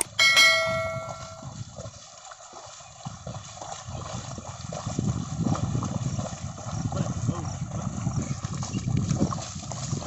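A mouse click and a notification-bell chime from a subscribe-button animation ring at the start and fade within about a second. Then a pair of bullocks draw a plough through flooded paddy mud, hooves and plough sloshing and squelching in an uneven rhythm. The sloshing grows louder from about three seconds in as the team nears.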